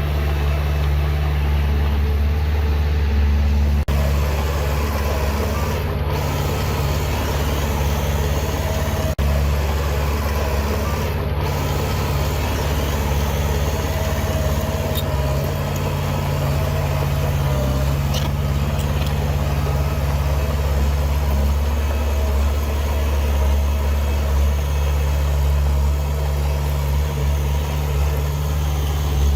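Heavy diesel engine of earthmoving machinery running steadily, with a deep, unbroken tone that hardly changes in pitch.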